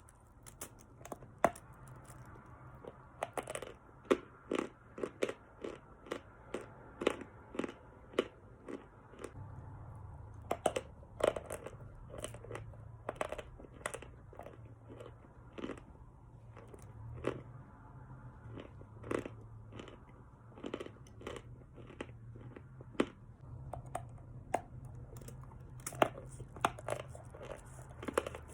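Khrapovsky lump chalk being bitten and chewed close to the microphone: an irregular run of dry, crisp crunches, about one or two a second.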